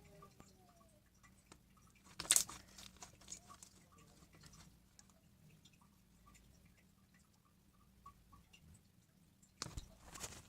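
Slime being squished and worked by hand: a run of small sticky clicks and crackles, with two louder crackling squishes, one about two seconds in and one near the end.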